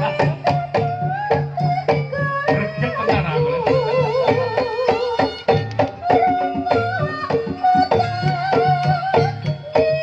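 Live East Javanese jaranan music: dense, fast drum strokes and a low repeating note under a wavering, bending melody line.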